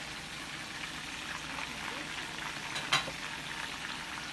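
Breaded chicken breast frying in a pan of hot oil: a steady sizzle with fine crackling, and a single sharp click about three seconds in.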